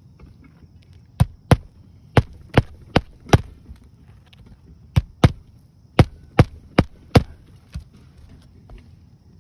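Hammer blows driving roofing nails into an asphalt shingle: two runs of about six sharp strikes each, a couple of seconds apart.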